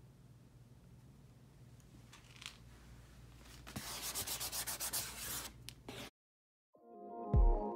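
A hand rubbing over the cardboard lid of a shoebox in a run of quick, scratchy strokes that cuts off suddenly about six seconds in. Music starts near the end.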